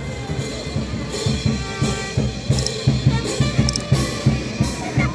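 Parade band percussion: bass drum and snare keeping a steady beat, with cymbal crashes on top.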